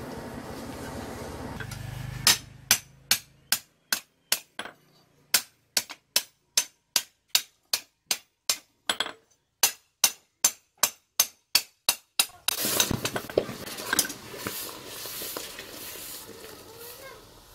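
Steady noise of a coal forge fire, then a hand hammer striking a hot axe head on an anvil, sharp metallic blows at about two to three a second with two short pauses. About twelve seconds in, the hot steel is quenched in water, hissing and sputtering.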